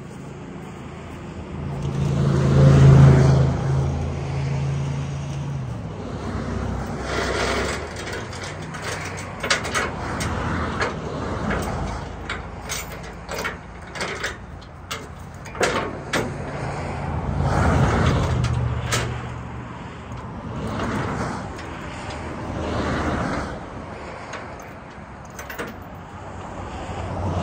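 Highway traffic passing, several vehicles rising and fading one after another, two of them heavy trucks with a low engine hum. Between the pass-bys, metal tow chains clink and rattle as they are handled at the flatbed deck.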